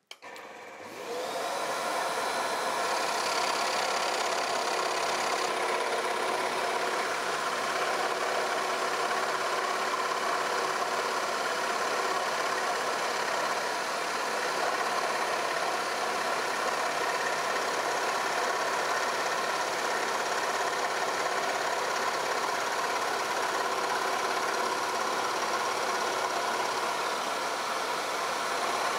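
Axminster Workshop scroll saw starting up, rising to speed about a second in, then running steadily as its reciprocating blade cuts a circle out of plywood.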